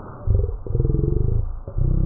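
Boxer dog growling low with a chew bone held in its mouth: one long growl from just after the start, then a second one beginning near the end.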